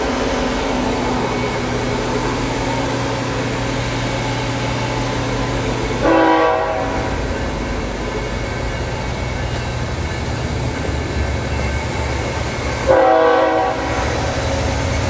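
Steady whir of a large drum fan with a low hum under it. Twice, about six and about thirteen seconds in, a brief horn-like tone sounds for under a second.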